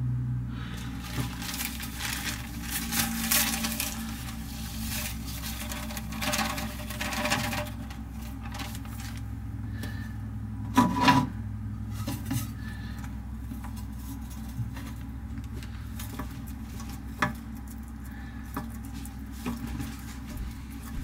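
Rustling and scratching around a feeding dish as dubia roaches are put in and scrabble in it. A cluster of louder knocks comes about eleven seconds in, followed by scattered light clicks, all over a steady low hum.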